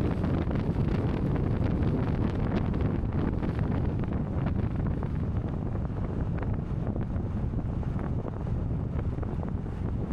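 Wind buffeting the microphone: a steady low rush.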